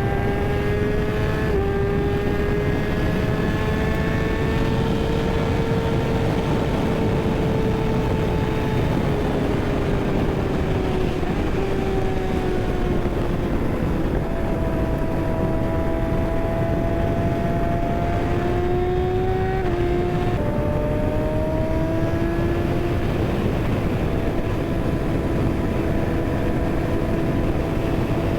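Kawasaki ZX-6R inline-four engine running under way, its pitch slowly rising and falling with the throttle through corners, with a few sudden steps in pitch. Steady wind rush on the microphone underneath.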